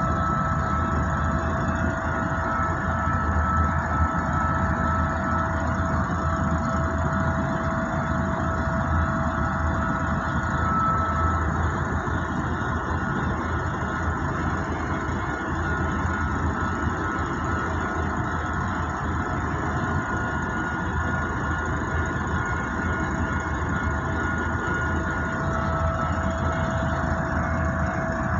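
Truck's diesel engine idling steadily, heard from inside the cab, while a container freight train runs past at a level crossing.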